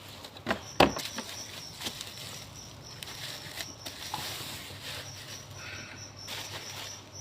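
Packaging being handled and opened: rustling and scraping with scattered clicks, and one sharper knock about a second in.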